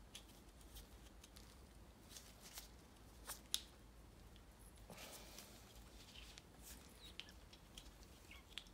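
Faint handling sounds: small clicks and rustles of gloved hands working the plastic cap of an aerosol can, with one sharper click about three and a half seconds in.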